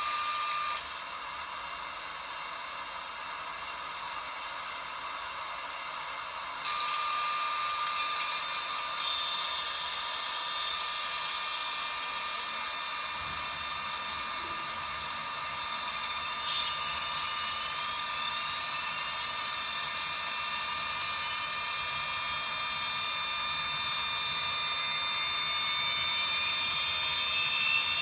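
LG WT5680HVA top-load washer's direct-drive motor whining steadily. From about halfway through, its pitch climbs steadily as the drum speeds up, typical of the spin cycle.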